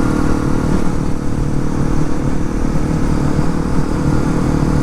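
Honda CRF250L dual-sport motorcycle's single-cylinder four-stroke engine running at a steady, even pitch, with a low rumble beneath it.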